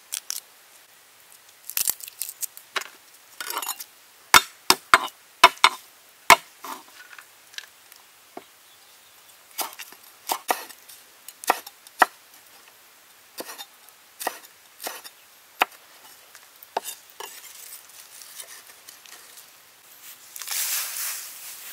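Cleaver chopping chillies, garlic and herbs on a wooden table: irregular sharp knocks, with a quick run of loud strokes about four seconds in. A brief rustling burst near the end.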